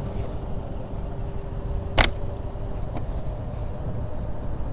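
Motorcycle on the move, a steady low engine and wind rumble heard from the rider's camera, with a faint steady tone for the first two seconds and a single sharp knock about two seconds in.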